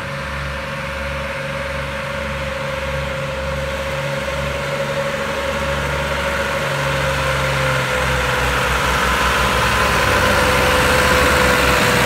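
Massey Ferguson tractor diesel engine working under load with a loaded trolley, its low pulsing rumble and a steady whine above it growing louder as it comes closer.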